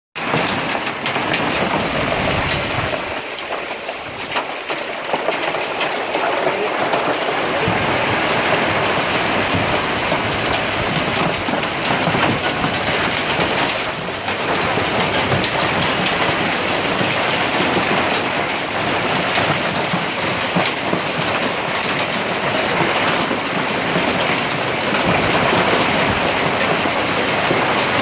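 Hail and heavy rain pelting down in a hailstorm: a dense, steady clatter of countless small impacts.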